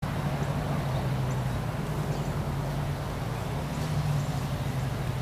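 A steady low engine hum over outdoor background noise.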